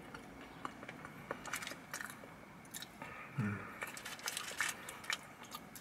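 Quiet chewing of seasoned Cajun fries, with small mouth clicks and light rustling of the paper food wrapper.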